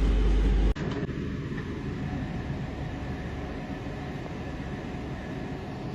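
Inside a Class 323 electric multiple unit: a heavy low rumble cuts off suddenly under a second in, leaving a steadier, quieter hum of the train.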